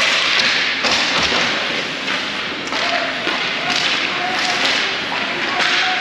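Thuds of play during a youth game, the loudest pair about a second in, over a steady din.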